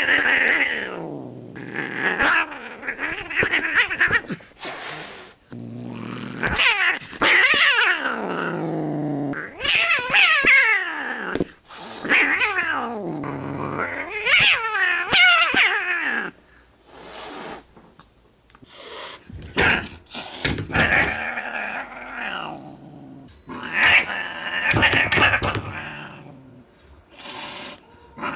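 Cats yowling and growling at each other while fighting. There are about seven long, drawn-out calls that slide down in pitch, with short gaps between them and a quieter stretch in the middle.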